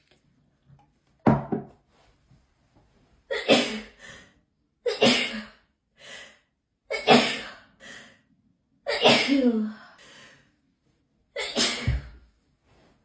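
A person sneezing over and over in a hay fever attack: six loud sneezes about two seconds apart, most followed by a short, quieter burst.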